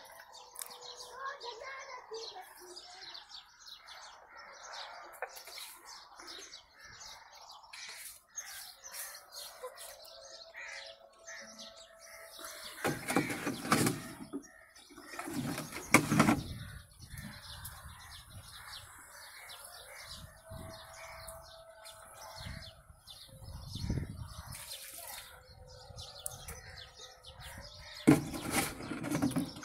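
Birds chirping steadily in the trees, with several louder bumps and knocks partway through and near the end as a plastic water can is handled and set down.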